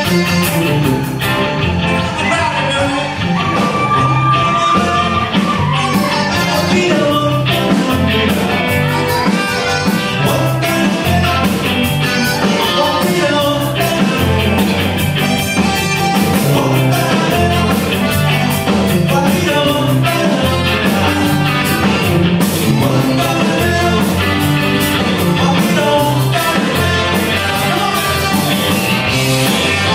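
Live Tex-Mex rock band playing, with a lead vocal over electric guitars, bass, drums, keyboard and accordion, the beat steady throughout.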